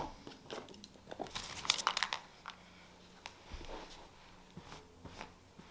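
Faint rustling with scattered light clicks and taps as a person shifts across a bed and handles small objects, with a soft low thump about halfway through.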